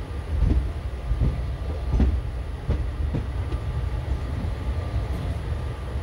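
Passenger train running past on the track: a continuous deep rumble with the wheels knocking over rail joints about twice a second.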